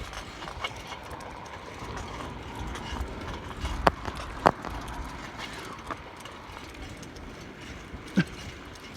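Low steady rumble with a few sharp knocks, two of them close together about four seconds in and another near the end.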